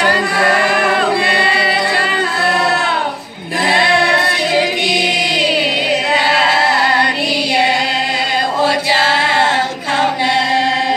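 A group of women singing together unaccompanied in long held notes, with a short pause for breath about three seconds in.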